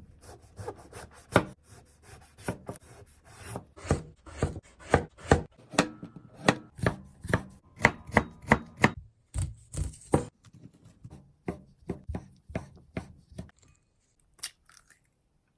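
Knife chopping food on a cutting board: a run of sharp strokes, several a second, that thin out over the last few seconds.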